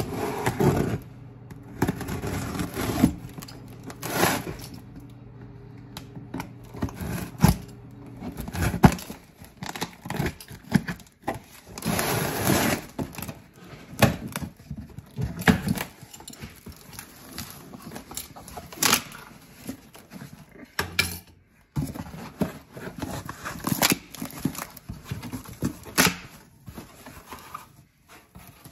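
Mini bike kit parts being unpacked: a knife cutting into packaging and packaging tearing, with metal parts clinking and scraping. Irregular knocks, clicks and rustles, several sharp ones standing out.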